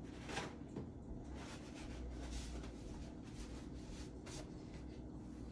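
Faint rustling and light handling clicks over a low steady room hum.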